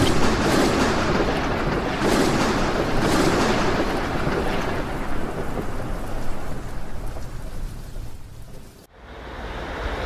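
Thunder from a close lightning strike: a long rolling rumble with a few sharper cracks in the first seconds, slowly fading, then cutting off abruptly about nine seconds in.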